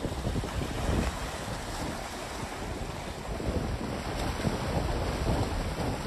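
Wind gusting over the microphone, with wind-driven waves on choppy lake water splashing at the shore.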